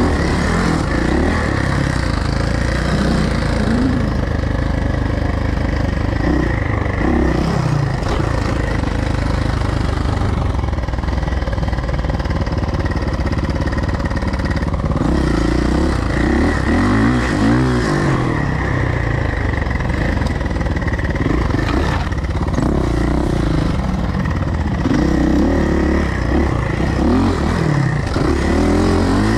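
Suzuki motocross bike engine being ridden hard, revving up and dropping back over and over as the throttle opens and closes, its pitch rising and falling every few seconds.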